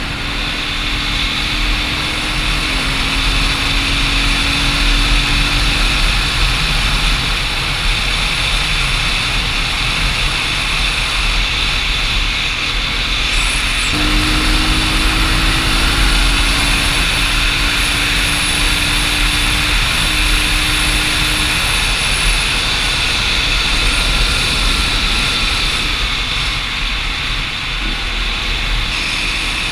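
Dual-sport motorcycle riding along at speed: a steady rush of wind over the helmet camera's microphone, with the engine's note underneath, rising slowly twice as the bike pulls.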